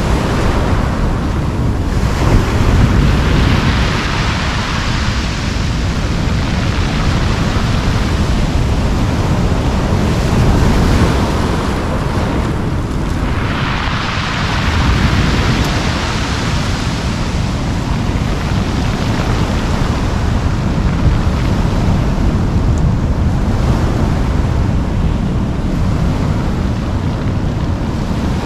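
Ocean surf breaking and washing up a pebble beach, with wind rumbling on the microphone. The hissing wash swells twice, a few seconds in and again about halfway through.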